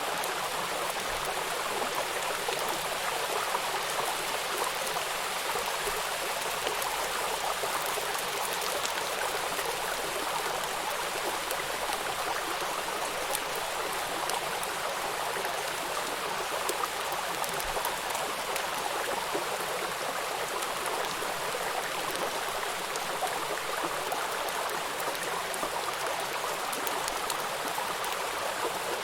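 Steady rain: an even hiss of falling water with a dense patter of separate drops, unchanging throughout.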